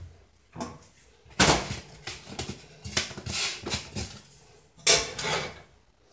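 Metal cookware being handled in a kitchen: several short clattering and scraping noises, spread through the few seconds.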